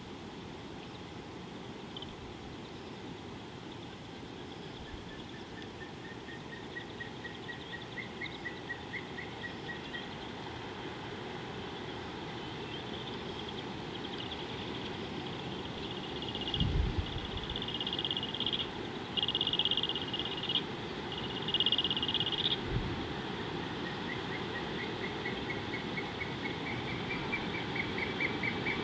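Bush ambience of calling birds and insects: twice, a bird gives a run of quick notes rising in pitch, over a steady high insect drone. Through the middle come loud buzzy trills in short bursts, and two low thumps are heard.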